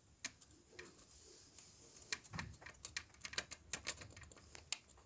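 Faint, irregular scratching and small clicks of a thin metal tool scraping a solder pad on an amplifier circuit board, cleaning a joint whose solder has come loose before it is resoldered.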